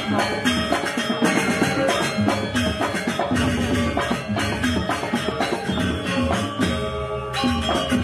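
Live gamelan music accompanying a janger dance, a dense and even beat of struck metal-keyed and drummed notes that runs on without a break.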